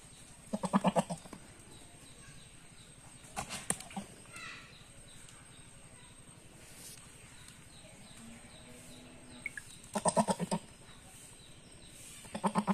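Goat bleating in short, quavering calls, three times: about a second in, then twice near the end. A few sharp clicks come about three and a half seconds in.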